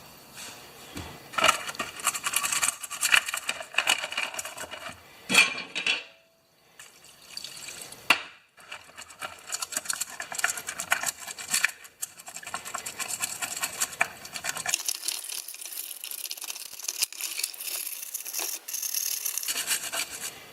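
Hand work on lawn mower recoil starter parts: irregular scraping, rubbing and light clattering of small parts, with a steadier hissy rubbing in the last few seconds.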